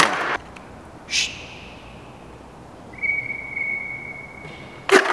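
Skateboard with three sideways trucks on a concrete floor: a sharp clack at the start, a brief scrape about a second in, then a steady high squeal lasting about two seconds, and sharp clacks of the board hitting the floor near the end.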